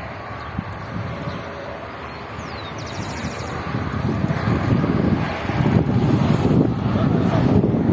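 Wind buffeting the microphone, a rough rushing noise that grows louder about halfway through.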